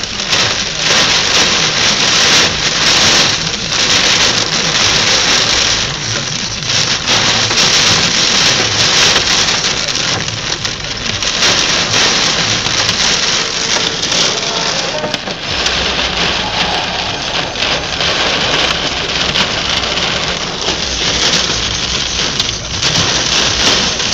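Heavy rain pelting a car's roof and windscreen, heard from inside the cabin: a loud, dense, steady hiss of downpour.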